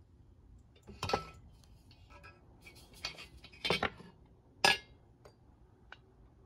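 Brass fuel tank and fittings of a SVEA No.100 paraffin pressure stove clinking and knocking as it is handled and turned over: a handful of sharp metallic clinks, the loudest nearly five seconds in.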